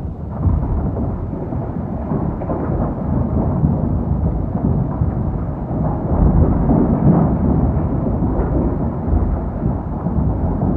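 A loud, deep rumble that goes on without a break and swells a little after the middle.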